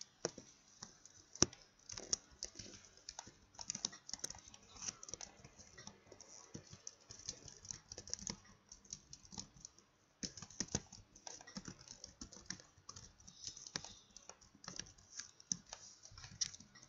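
Computer keyboard typing: a run of irregular key clicks as a short line of text is typed.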